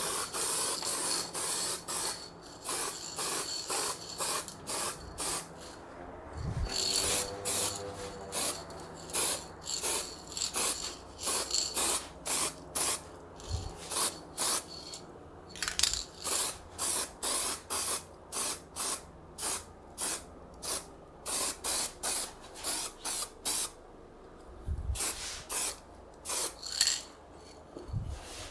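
Aerosol spray paint can sprayed in many short hissing bursts, about one to two a second with brief pauses between, as paint is dusted onto a snowmobile exhaust.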